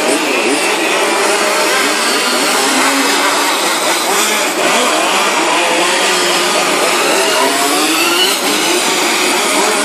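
Several 1:5-scale radio-controlled Formula 1 cars' small two-stroke petrol engines running together, their pitches rising and falling as they accelerate and brake through the corners.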